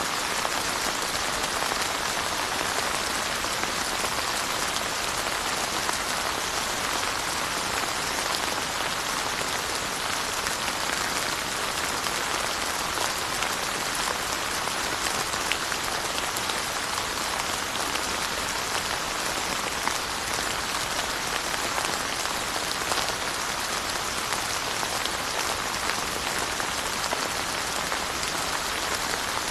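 Steady rain falling, a continuous even hiss with many fine drop ticks and no change in intensity.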